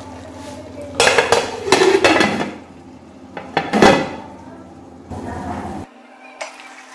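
Aluminium cookware clattering as an aluminium lid is set on an aluminium karahi of simmering chicken and tomatoes: several sharp metal clanks with a short ring in the first half, one more clank, then quieter cooking sounds.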